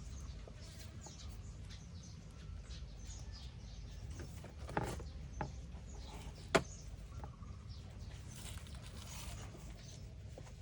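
Faint high chirps scattered throughout over a steady low rumble, with three sharp clicks or knocks around the middle, the last and loudest about six and a half seconds in.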